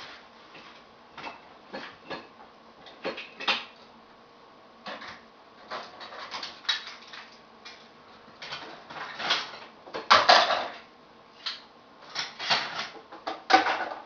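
Dishes and utensils clinking and clattering as a dishwasher is unloaded and the items are set into cupboards. The knocks come irregularly, with the loudest clatter about ten seconds in and another near the end.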